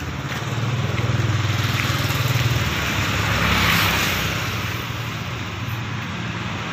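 A motor vehicle passing on the road: a low engine hum, then the noise rises to a peak about four seconds in and fades.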